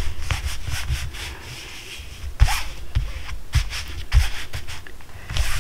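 Hands rubbing and pressing on the nylon fabric of a Clam Quick-Set screened shelter, smoothing down a freshly glued repair patch: a run of short rubbing strokes with a few dull thumps from about two and a half seconds in.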